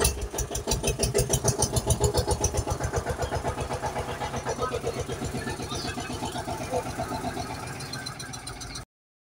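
Tractor engine chugging in a rapid, even beat after a sharp burst at the start. It is loudest in the first couple of seconds, then settles, and cuts off suddenly near the end.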